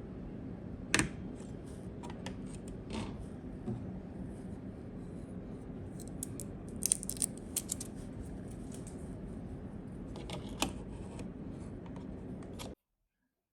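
Hands handling PC parts: scattered small clicks and scrapes over a steady low hum, with a quick run of clicks about halfway through. The sound cuts off abruptly near the end.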